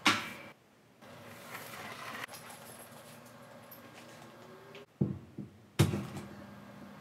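A push broom sweeps once across a concrete floor at the start. A few seconds later come two sharp knocks under a second apart, as a wooden board is set against the kiln's wooden frame.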